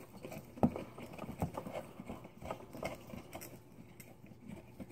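Light, scattered clicks and rattles of hard plastic being handled as a GoPro Hero4 in its waterproof housing is worked loose from its plastic mount, with one sharper click about half a second in.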